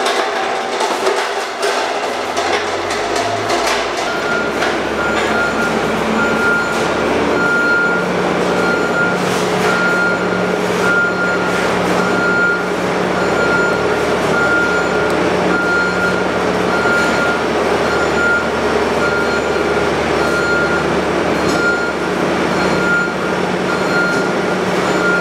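A heavy works vehicle's engine running steadily with its reversing alarm beeping about once a second; the beeping starts about four seconds in.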